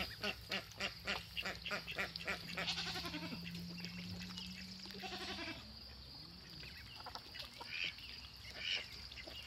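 Ducks quacking in a quick run of calls, about three or four a second, for the first few seconds, then a few scattered quacks near the end.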